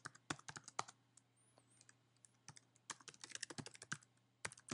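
Computer keyboard typing: quick runs of keystrokes, a pause of about a second and a half, then another fast run and a last single keystroke near the end.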